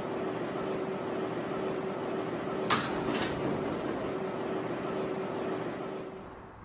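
Steady hiss with a faint low hum and two short clicks about halfway through. It fades away near the end.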